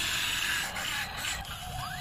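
Toy RC excavator's small electric motors and plastic gearing whirring as the arm and turret move, with a faint rising whine near the end.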